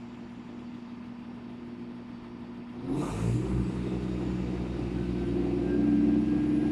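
Class 171 Turbostar diesel multiple unit ticking over at the platform. About three seconds in there is a brief hiss, and its underfloor diesel engines open up louder and deeper as the train starts to pull away.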